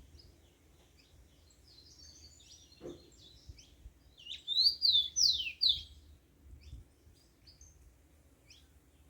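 Papa-capim (yellow-bellied seedeater) singing: soft high twitters, then about halfway through a loud quick phrase of paired down-slurred whistled notes, followed by scattered faint chirps.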